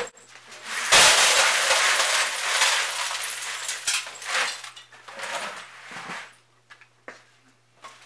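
Chunks of glass cullet poured from a plastic bucket onto a metal charging shovel: a loud clattering rush of glass that starts about a second in and tapers off by around six seconds, followed by a few small clinks. The glass is being loaded to charge the glass furnace.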